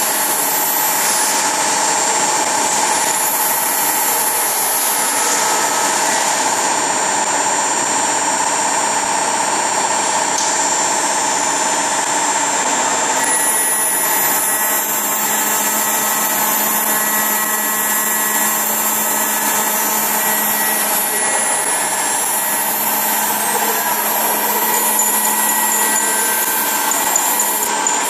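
CNC key-cutting machine running, its high-speed milling spindles whining steadily as they cut key blanks. A lower steady hum joins about halfway through.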